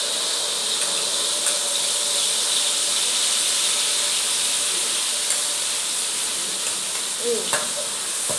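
Blended chili, shallot and garlic spice paste sizzling steadily in hot oil, with occasional light taps of a spatula scraping the bowl against the pan.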